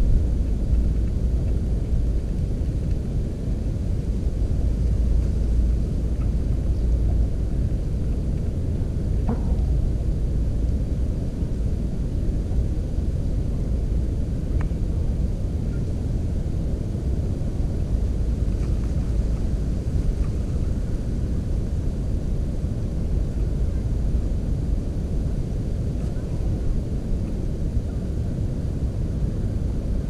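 Steady low rumbling noise with a couple of faint short clicks.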